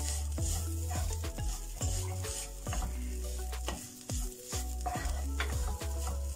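Wooden spatula stirring and scraping shredded chicken around a nonstick frying pan as it sizzles in melting butter, with a scrape or knock of the spatula about once a second.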